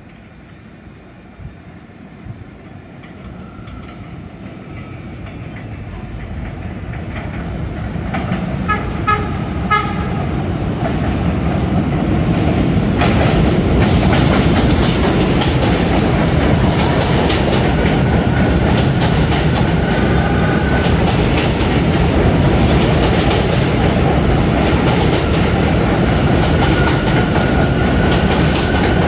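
R179 subway train approaching and growing steadily louder, sounding several short horn blasts about nine seconds in. It then runs past the platform with a steady loud rumble and the clatter of wheels over rail joints.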